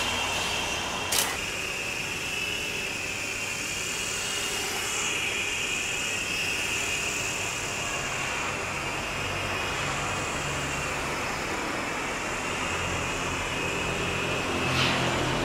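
Homemade mini remote-controlled helicopter in flight, its small electric motors and rotors giving a steady high whine that wavers slightly in pitch. A sharp click about a second in.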